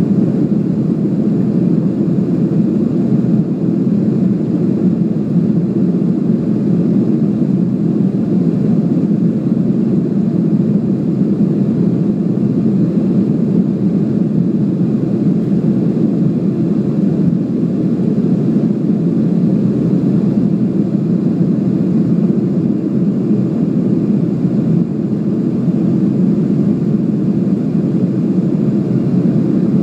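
Steady cabin rumble of a WestJet Boeing 737 airliner climbing out after takeoff: jet engine and airflow noise heard from inside the cabin, even and deep throughout.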